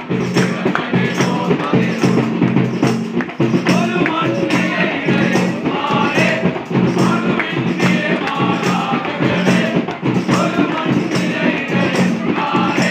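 A group singing a Christmas carol, with a tambourine shaken and struck on a steady beat over the music.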